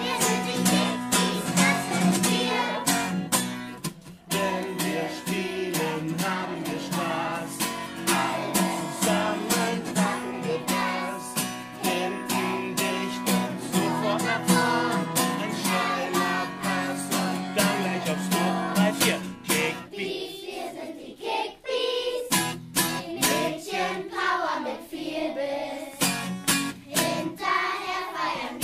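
German-language children's football song: children's voices singing over strummed acoustic guitar and a steady beat. The low accompaniment thins out about two-thirds of the way through.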